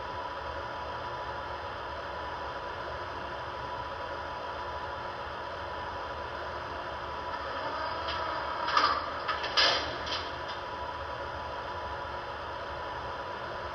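Steady hum of standing model subway cars' onboard sound, with a few creaks and metal clanks about eight to ten seconds in.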